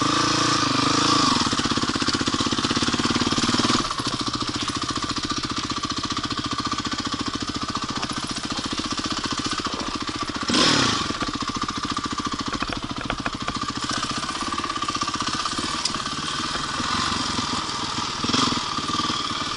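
Honda CRF450R's single-cylinder four-stroke engine running as the bike is ridden along a trail, heard from a helmet camera with wind noise over the microphone. The engine note rises and falls with the throttle, and there is a loud rev about halfway through.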